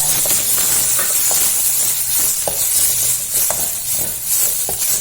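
Curry leaves and dried red chillies frying in a little hot coconut oil: a steady sizzle with a few sharp ticks scattered through it as they are stirred.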